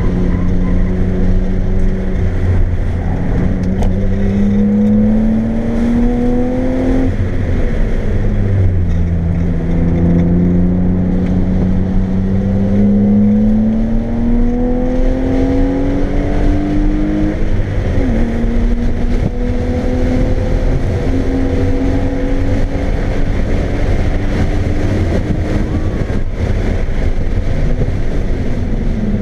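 A 1995 BMW M3's straight-six engine pulling hard under load, heard from inside the car's cabin on track. The engine note climbs and drops sharply at a shift about seven seconds in, climbs for a long stretch and drops again a little past the midpoint, then rises slowly once more and drops near the end, over a steady rumble of tyre and wind noise.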